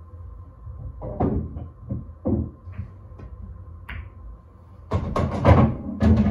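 Pool shot on a pool table: a sharp click of the cue tip on the cue ball, then the loudest part about a second later, the pocketed ball dropping and rolling with a dull rumbling clatter through the table's ball return. Light knocks come before the stroke.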